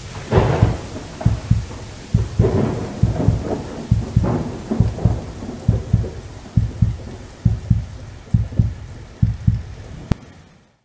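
End-card sound effect: deep thumps, many in heartbeat-like pairs, over a hiss of static with brief crackles in the first half. A sharp click comes near the end, and the sound fades out.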